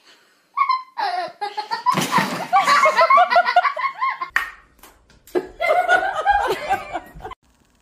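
People laughing: a long run of repeated laughs, then, after a short pause, another burst of laughter.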